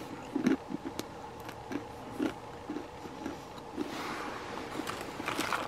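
Dried apple chips being chewed: a string of crisp crunches, a few a second. From about four seconds in, a plastic bag crinkles as a hand reaches into it.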